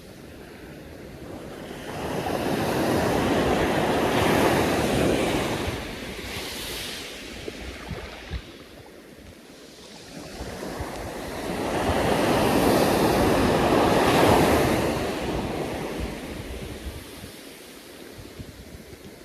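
Ocean waves breaking on a surf beach: two long washes of surf swell up and die away, about ten seconds apart, with wind rumbling on the microphone.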